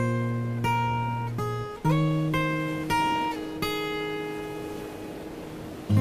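Acoustic guitar playing a slow instrumental passage with no voice: notes and chords are plucked a few at a time, each left to ring and fade, and the last chord rings out for about two seconds.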